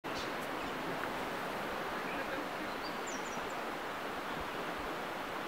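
Steady beach ambience of surf and wind noise, with a few faint high chirps about three seconds in.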